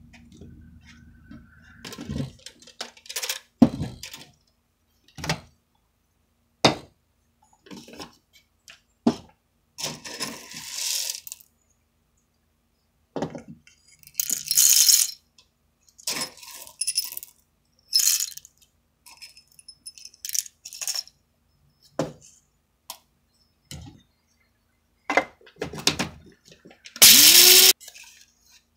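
A string of short clinks, knocks and rattles from hand coffee preparation: a paper filter being fitted, whole coffee beans scooped with a steel measuring scoop into the metal bowl of a blade grinder, and ground coffee scraped out with a wooden stick. The longest rattles come about ten and fourteen seconds in, and the loudest is a scraping rush near the end.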